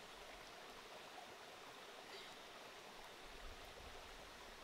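Near silence: a faint steady hiss of background noise, with a low rumble coming in near the end.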